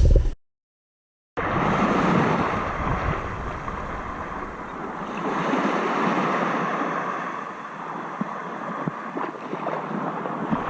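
A steady rushing noise that starts after about a second of silence near the start.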